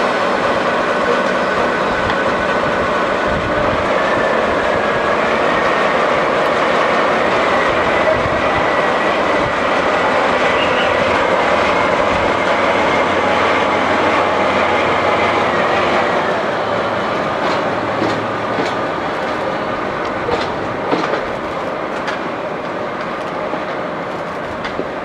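Diesel locomotive running as it moves slowly past, its engine steady with a high whine over it. About two thirds of the way through the whine stops, the noise eases a little, and there are a few sharp wheel clicks over rail joints.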